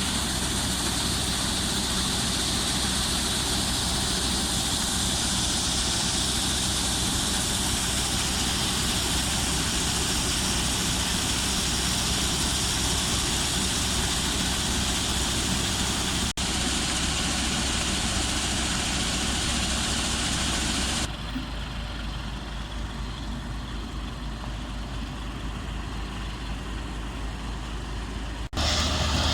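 Combine harvester running steadily while harvesting corn, a steady engine drone under a loud mechanical hiss. About two-thirds through, the sound cuts abruptly to a quieter, duller stretch of the same kind of running machinery.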